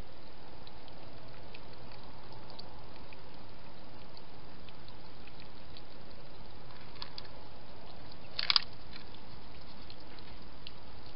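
Hedgehog feeding at a dish: faint wet clicking and smacking over a steady hiss, with a short burst of louder clicks about eight and a half seconds in.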